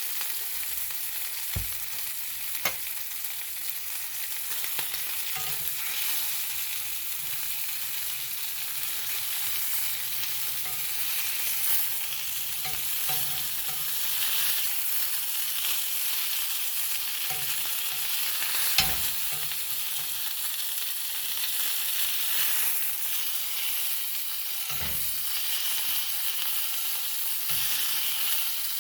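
Boneless, skinless chicken thigh sizzling steadily as it fries in oil in a pan, with a few sharp knocks, the loudest about two-thirds of the way through.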